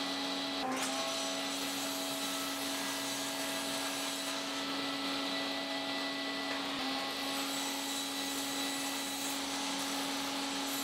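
Table saw running steadily, its blade briefly loading as it trims the edges of a plywood sharpening tray on a crosscut sled, about a second in and again near seven seconds.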